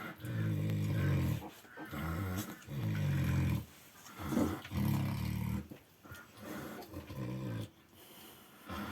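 Farrowing sow snoring, dozing between contractions: a deep, rasping snore on nearly every breath, about one a second.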